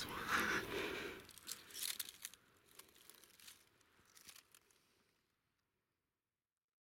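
A hushed voice trails off in the first second, then scattered dry crackling and rustling clicks thin out and stop about five seconds in, leaving silence.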